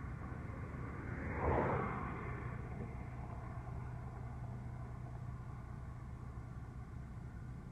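Steady low engine rumble with a low hum, and a brief rushing swell about a second and a half in.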